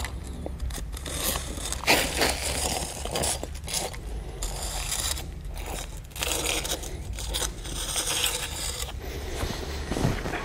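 Paver marking tool's scribing point scratching a cut line across clay pavers as the tool slides along the edge restraint, in uneven scraping strokes with short pauses between them. A dull knock near the end.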